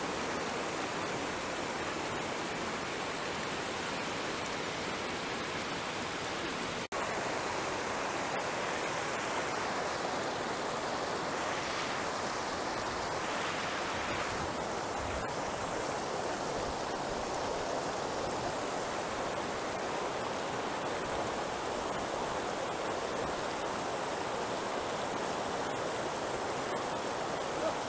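Shallow mountain river rushing over boulders in whitewater rapids: a steady, even rush of water, with a brief break about seven seconds in.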